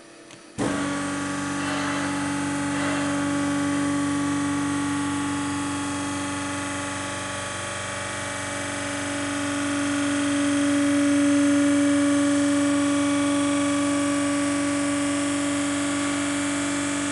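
Italpresse XL veneer press's hydraulic pump cutting in abruptly and running with a steady, loud hum as the press table rises to close the platens. The hum swells slightly about two-thirds of the way through.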